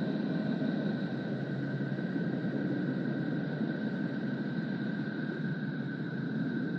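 A steady drone presented as the sound of a planet: a dense rumbling hiss with two faint steady high tones held over it, unchanging throughout.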